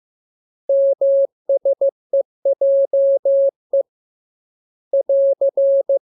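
Morse code sent as a single steady beep tone of about 600 Hz, keyed in short dits and longer dahs grouped into letters, with a pause of about a second before the last group.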